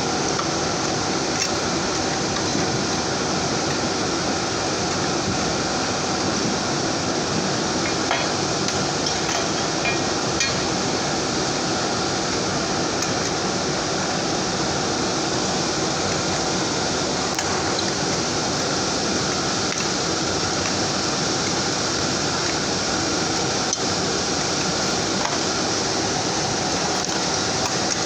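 Crucible furnace's burner and blower running with a steady, even rushing noise, with a few faint metallic clinks now and then.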